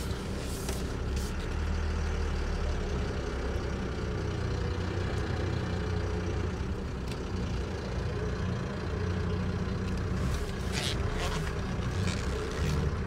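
MAN heavy recovery truck's diesel engine running as the truck drives slowly, heard from inside the cab, with a few brief clicks near the end.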